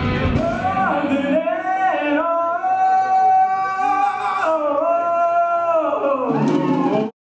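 Male singer's voice, live and amplified, holding long melismatic sung notes that bend up and down. The band's low end drops out after about a second and a half, leaving the voice nearly alone. The sound cuts off abruptly near the end.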